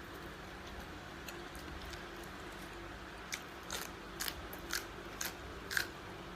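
Crisp chewing of raw vegetables: about six short, sharp crunches in the second half, over a faint steady background hum.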